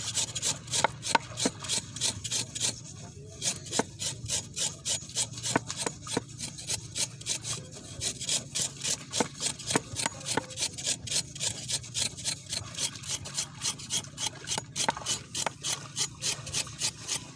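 Knife blade scraping over the skin of a batuli laid on a wet board, a rapid, rhythmic run of short rasping strokes. This is the scraping that strips off the yellow outer layer until the animal turns white.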